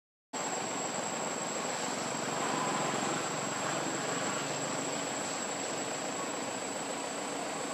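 Steady outdoor ambience: a continuous high, thin insect drone over an even rushing background noise, broken by a brief dropout to silence right at the start.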